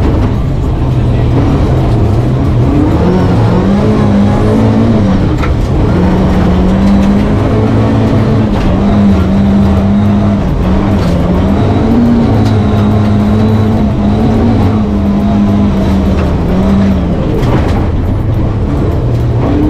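Rally car engine heard from inside the cabin, held at high revs with repeated brief drops and climbs in pitch as it shifts and lifts, over the steady noise of tyres on a snowy road.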